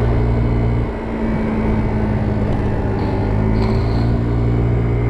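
Kymco Agility 50 scooter's 50cc engine running steadily under load as it climbs a hill, with wind noise on the microphone.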